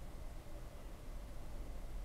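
Quiet room tone: a steady low hum with faint hiss and no distinct sound.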